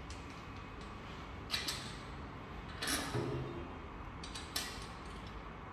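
A few soft clicks and knocks, three of them spaced a second and a half apart, from a battery cable's lug and terminal being handled and fitted onto a lithium battery bank's positive terminal.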